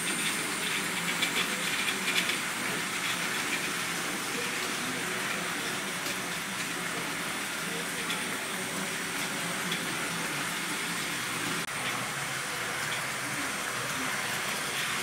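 Electric model trains running on their tracks: a steady whir of small locomotive motors mixed with wheels rattling over the rails, with a few light clicks in the first couple of seconds.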